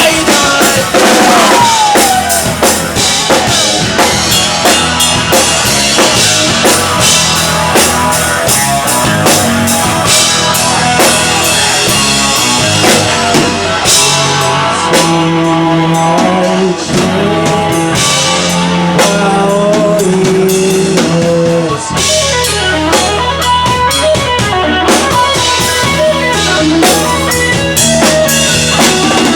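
Live rock band playing an instrumental passage: drum kit keeping a steady beat under electric guitar.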